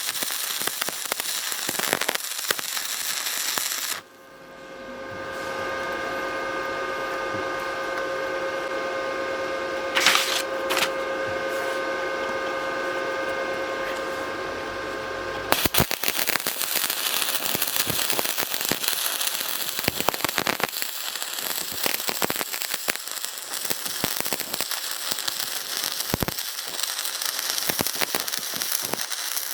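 Electric arc welding: the arc crackles and sputters densely. From about four seconds in until about fifteen seconds, the crackle gives way to a steadier noise with a steady whine of several tones. Then the crackling arc comes back.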